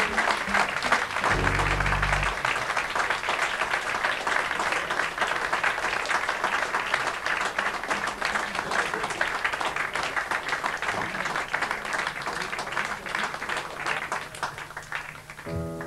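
Audience applauding a jazz number, the clapping dense and steady, then thinning out near the end. Low sustained notes from the band sound in the first two seconds, and a piano starts playing right at the end.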